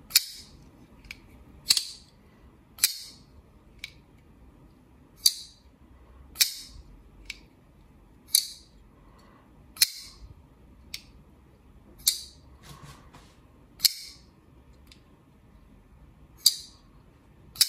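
Zero Tolerance 0562 full-titanium frame-lock flipper knife being flicked open and shut over and over. Each action gives a loud, sharp metal clank, roughly one every one to two seconds, with a few softer clicks in between.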